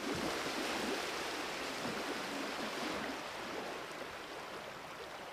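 Water rushing and churning in the wake of a Hacker-Craft wooden motorboat under way: a steady hiss with no clear engine note, easing a little near the end.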